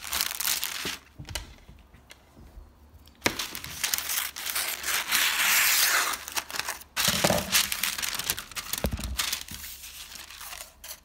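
Parchment paper crinkling and rustling as hands press and smooth it into a baking sheet, with a quieter stretch of a couple of seconds about a second in.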